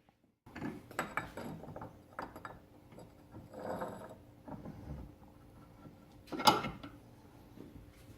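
Clicks, rattles and knocks of steel being handled and clamped in a bench vise, with one sharp louder clank about six and a half seconds in; no grinder is running.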